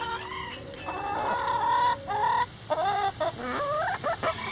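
Chickens clucking and calling, several birds at once, with a quick run of short rising and falling calls in the second half.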